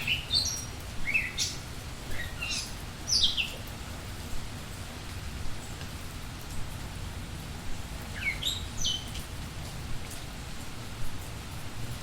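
A songbird singing two short phrases of quick, high whistled notes over steady falling rain. One phrase comes at the start and the other about eight seconds in.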